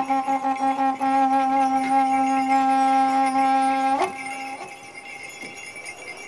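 A wind instrument holds one low note. It wavers in a quick pulse at first, steadies after about a second, and cuts off abruptly about four seconds in, leaving a much quieter background.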